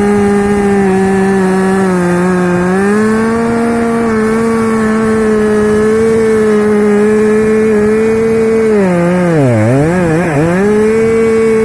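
Husqvarna 550XP Mark II two-stroke chainsaw running at high revs, its loud, steady engine note held near full throttle. About nine seconds in the pitch drops sharply twice and climbs back.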